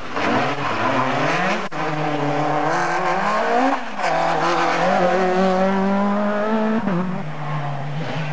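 Škoda Octavia WRC rally car accelerating hard out of a corner and past, its engine revs climbing and dropping through several quick upshifts, with a sharp crack about one and a half seconds in. Near the end the engine note falls to a lower pitch as the car goes away.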